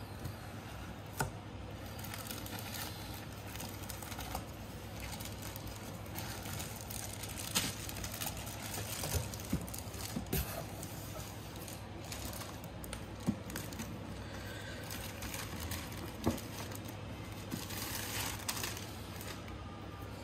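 Plastic air-cushion packing wrap crinkling and rustling as it is pulled out of a cardboard box, with scattered sharp clicks and taps of handling. A steady low hum runs underneath.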